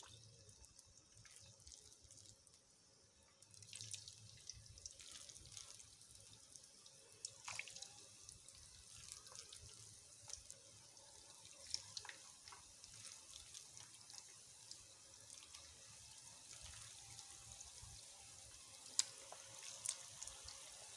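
Cabbage and onion pakoras deep-frying in hot oil in a wok: a faint, steady sizzle with scattered crackles and pops, a little louder from about four seconds in.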